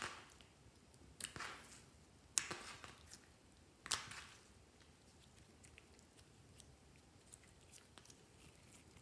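Clear slime being folded and squeezed by hand: wet, sticky squishes, with four louder ones in the first four seconds and only faint small crackles after.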